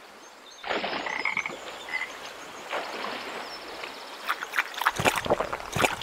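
A frog croaking as a cartoon sound effect: a run of short croaks that come in clusters, over a faint hiss.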